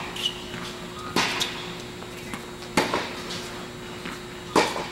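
Tennis balls struck by rackets and bouncing on the court during a rally: sharp pops about every second and a half, with softer ones between. Each pop echoes in the indoor tennis hall.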